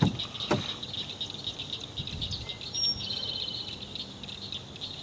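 Steady high-pitched evening insect chorus, with a short bird chirp and a quick rapid trill about three seconds in. A couple of soft knocks right at the start.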